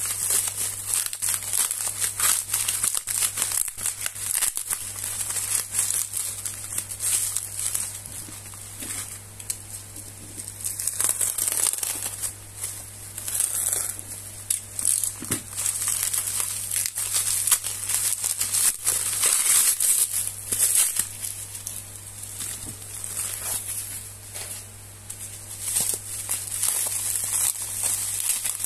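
Plastic packaging, bubble wrap and a plastic mailer bag, being crinkled and pulled apart by hand: continuous irregular crinkling and crackling, easing off twice for a couple of seconds.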